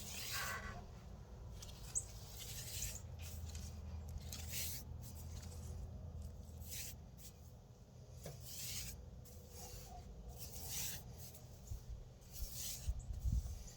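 Paintbrush strokes of bonding primer on a cedar beam: a run of short brushing swishes, about one every second or two.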